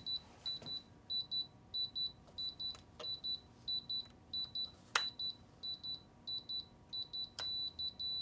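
Spektrum radio transmitter beeping in bind mode: short high beeps in pairs, repeating evenly about three times every two seconds. The beeping runs while the radio binds to a Nano QX2 FPV quadcopter. A few sharp handling clicks fall among the beeps, the loudest about halfway through.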